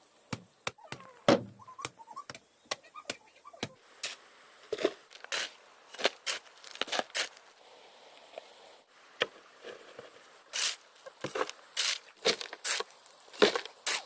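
A series of irregular sharp knocks and taps, some followed by short scrapes or rustles.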